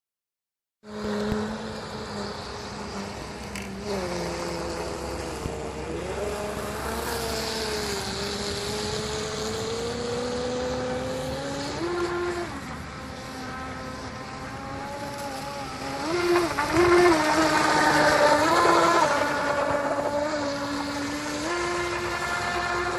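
Pro Boat Miss Geico 29 RC catamaran's brushless electric motor whining as the boat runs across the water, its pitch rising and falling with the throttle, with a hiss of spray under it. It starts about a second in and is loudest for a few seconds about two-thirds of the way through.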